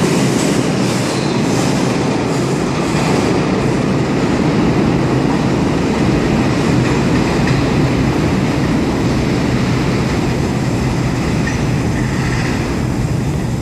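R142 subway train pulling out of the station. Its wheels click over rail joints about twice a second for the first few seconds, over a loud, steady rumble and rattle.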